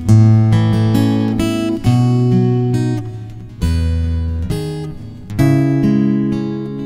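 Acoustic guitar music: strummed chords left to ring, a new chord struck about every two seconds.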